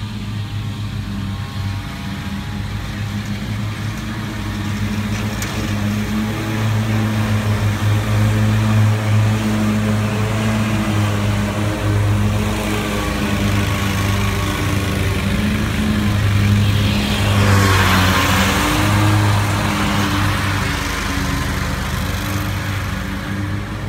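Scag Cheetah 61-inch zero-turn mower's 34-horsepower engine running steadily while mowing grass. It grows louder as the mower comes nearer, with a rush of cutting noise added about 17 seconds in.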